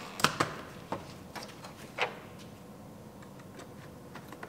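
Air intake tube being fitted onto a pickup's airbox and throttle body: a few sharp clicks and knocks in the first two seconds, then light ticking as a screwdriver tightens the tube's hose clamp.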